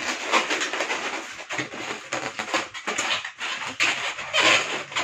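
Inflated latex modelling balloon squeaking and rubbing against itself as it is handled and its end is worked through a twisted loop, a dense run of short squeaks and rubs.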